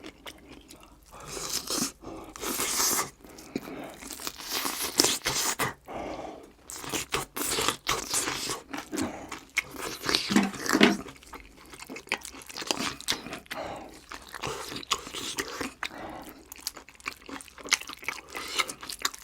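Close-miked chewing and biting into a crisp breaded fried pork cutlet, with many irregular crunches.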